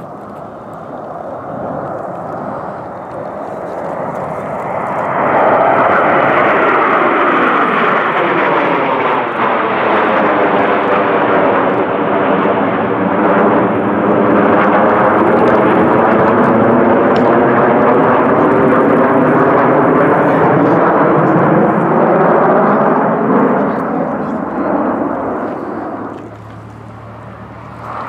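A nine-jet formation of Aermacchi MB-339 PAN trainers passes overhead, their single-turbojet engines making a loud jet rush. The noise swells over about five seconds and holds with a slow, sweeping whoosh as the formation goes over. It falls away about two seconds before the end, as another jet's noise begins to build.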